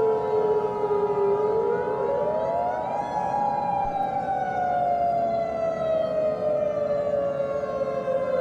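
Civil defense siren wailing: its pitch dips, climbs to a peak about three seconds in, then slowly falls. A steady tone sounds under it and stops about four seconds in.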